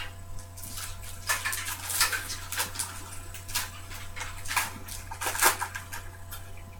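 Trading cards and their plastic holders being handled: irregular rustling and light clicks, with a steady low hum underneath.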